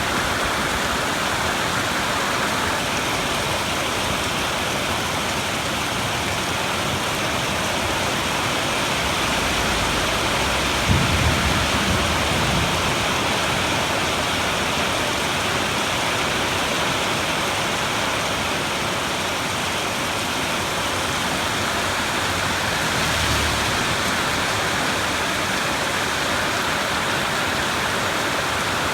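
Steady, heavy rain falling, with a low rumble of thunder about eleven seconds in and a fainter rumble later on.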